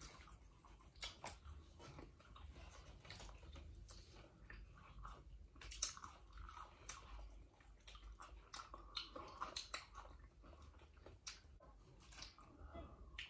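Faint chewing and biting of chicken wings and fries, with scattered soft clicks and crackles.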